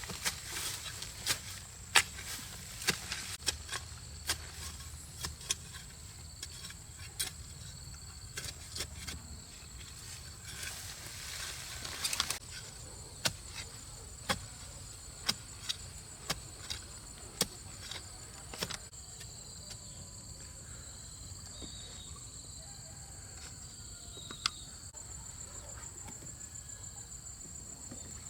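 Insects keep up a steady, high-pitched pulsing chorus. Through the first two-thirds, a string of sharp clicks and knocks comes every half second or so, with a short rushing noise in the middle; after that the clicks stop and only the insects go on.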